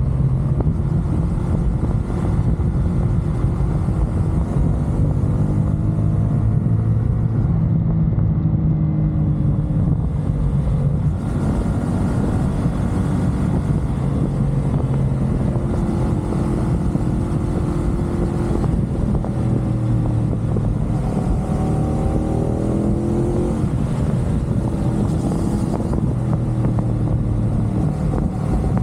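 CFMoto 450SR's parallel-twin engine running at expressway speed over a steady rush of wind and road noise, its pitch rising and falling several times.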